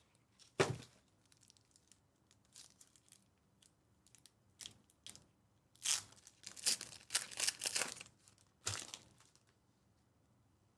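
Sports card pack wrapper being torn open and crinkled by hand. The rustles come in scattered bursts, busiest from about six to eight seconds in.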